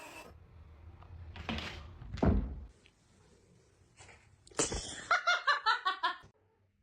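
Two dull thumps, then near the end a person laughing in a quick run of about eight short bursts.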